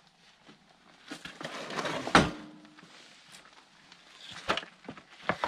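Steel snowblower hitch frame being lifted and handled off a wooden pallet: scraping and rustling build up to a loud clunk with a brief ring about two seconds in, and a lighter knock comes near the end.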